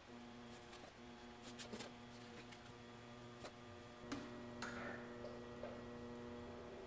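Low steady hum, with a few faint ticks and short scrapes as an aluminum sheet is shifted on a bead roller's metal table.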